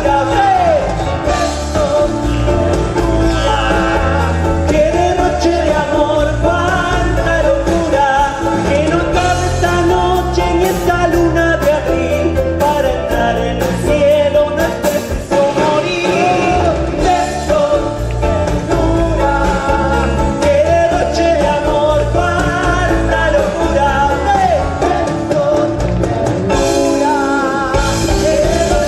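Music: a Latin popular song with a steady beat, bass and a winding melody line.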